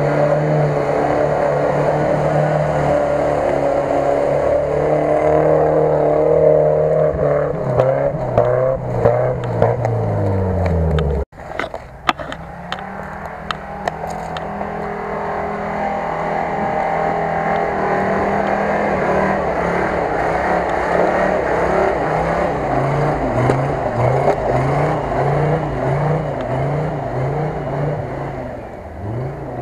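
Off-road 4x4 engines working hard in deep mud, the revs rising and falling as the vehicles push through. About eleven seconds in, one engine's pitch drops away and the sound breaks off abruptly. Another engine then runs steadily and is blipped in quick rhythmic pulses near the end.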